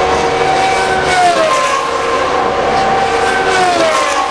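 Open-wheel single-seater race cars running flat out down a straight. Their high, pitched engine notes hold, then fall as each car passes, twice.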